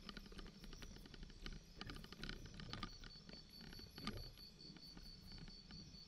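Bicycle rolling over a bumpy dirt track: a low rumble of tyres on the rough ground under irregular clicks and rattles from the bike and camera mount jolting over the bumps.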